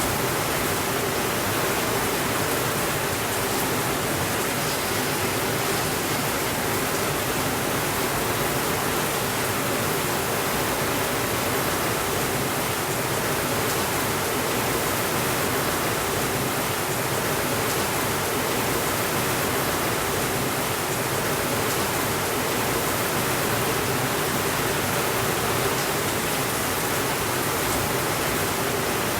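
Steady rainfall, an even, unbroken hiss with no thunder.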